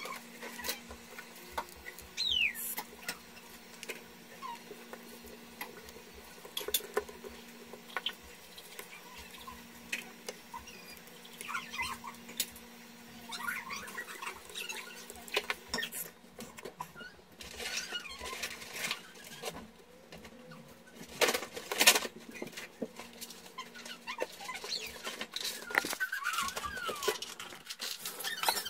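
Small irregular clicks, taps and scrapes of tools and parts being handled during smartphone repair work, over a steady low hum.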